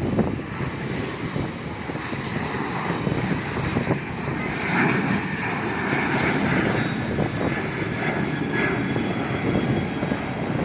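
Airliner engines, a steady low rumble with a rushing hiss that grows a little stronger partway through.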